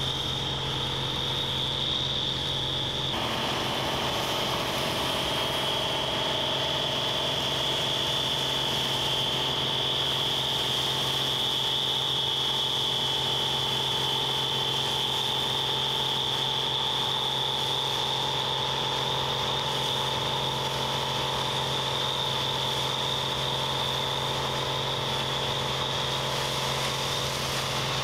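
Combine harvester running steadily under load, a constant high whine over the engine hum; the whine drops slightly in pitch about three seconds in.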